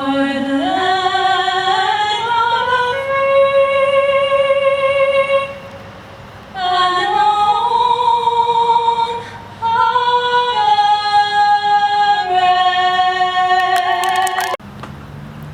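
A woman singing solo and unaccompanied, in long, slow phrases of held notes with vibrato, with a short breath gap partway through. The singing cuts off abruptly near the end.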